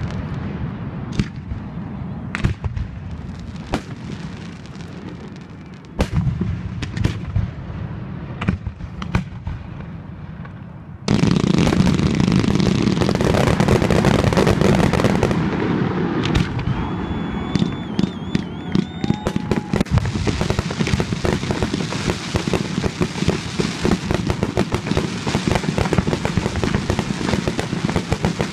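Fireworks display: separate aerial shell bursts for the first ten seconds or so, then about eleven seconds in a sudden, dense barrage of rapid bangs and crackling that keeps going, with a few short whistles partway through.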